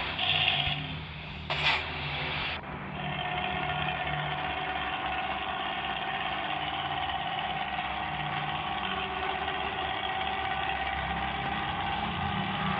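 Bus engine running steadily through a snoring-style ('ngorok') exhaust. There is a short sharp knock about one and a half seconds in, and a steady whine joins from about three seconds in.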